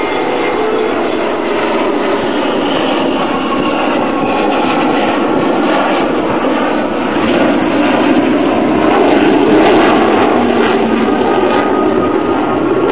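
Avro Vulcan bomber flying past and climbing away under power: the jet roar of its four Rolls-Royce Olympus turbojets, loud throughout and swelling to its loudest about eight to ten seconds in.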